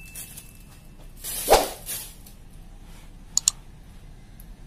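Thin plastic bag crinkling and rustling as ground pork is shaken out of it into a glass dish. The rustle is loudest about a second and a half in, and two quick light clicks follow a little after three seconds.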